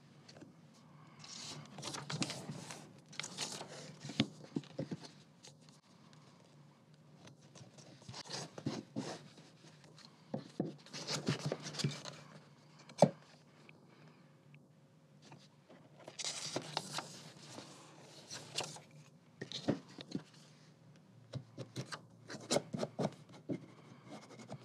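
A book page being folded over a thin metal ruler and creased with a bone folder: irregular bursts of paper rustling and rubbing with small clicks, and one sharp tap about halfway through.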